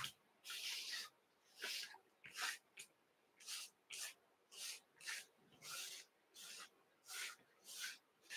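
Faint scratchy rubbing: a dozen or so short strokes at an uneven pace, roughly one or two a second, from hands working materials at a fly-tying bench.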